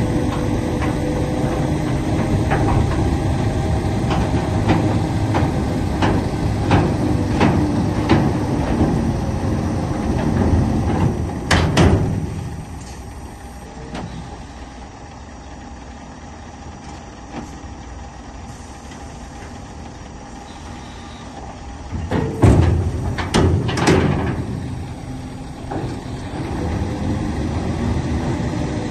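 Scania R730's V8 diesel idling steadily. For the first ten seconds there are regular sharp crunches about two every one and a half seconds, like footsteps on snow, then loud thumps near the middle and again about two-thirds of the way in. The engine is quieter between them.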